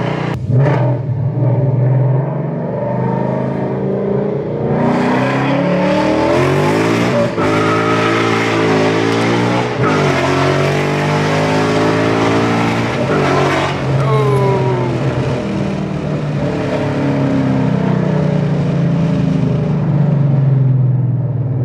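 Car engine revving hard under acceleration. Its note climbs, breaks off sharply about ten seconds in and climbs again, then falls away as the car slows.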